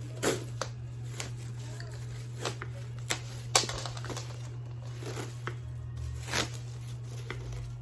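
Packaging being handled and unwrapped: rustling with scattered sharp clicks and crinkles, the loudest about three and a half seconds in, over a steady low hum.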